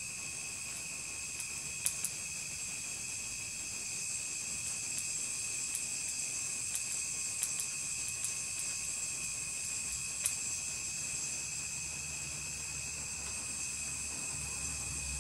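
Low-current electric welding arc, set to about 40–45 amps, running steadily as it welds the butt joint of a thin carbon-steel bandsaw blade: a steady high-pitched hiss with a few sharp crackles.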